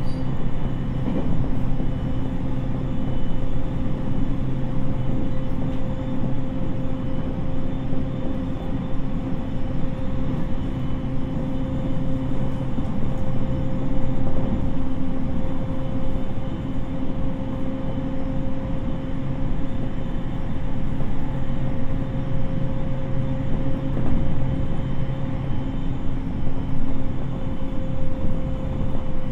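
Interior running sound of a JR East 701 series electric multiple unit with renewed VVVF traction equipment, heard inside a motor car: a steady rumble of wheels on rail with a constant hum of several held tones. The pitch neither rises nor falls, so the train is cruising at steady speed.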